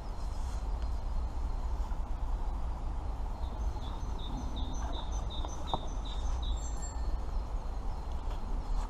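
Outdoor background noise with a steady low rumble, over which a small bird calls a quick run of about ten high chirps, about three a second, from about three and a half seconds in to about seven.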